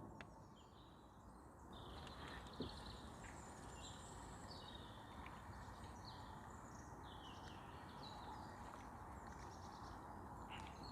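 Faint songbird chirps and twitters repeating throughout over a quiet low background rumble, with a single sharp click about two and a half seconds in.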